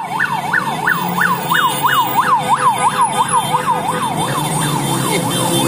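Vehicle siren in fast yelp mode, about three rising-and-falling sweeps a second, fading near the end, over the engine noise of a passing convoy of motorcycles.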